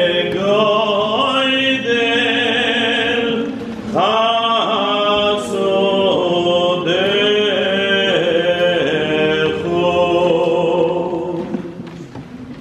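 Boys' choir with men singing a Selichos melody in Hebrew, in long sung phrases with a short break about four seconds in, growing quieter near the end.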